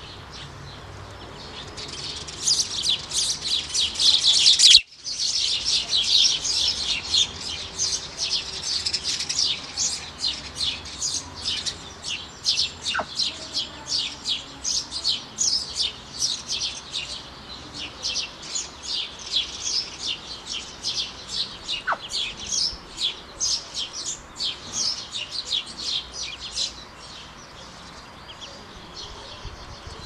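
Ducklings peeping: a dense, rapid run of high chirps that starts about two seconds in, breaks off sharply for a moment near five seconds, and fades out near the end.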